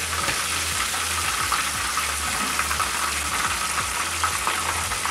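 Breaded popcorn chicken pieces sizzling and crackling steadily in hot oil at the end of deep-frying, done and ready, as a wire spider skimmer is moved through the oil to scoop them out.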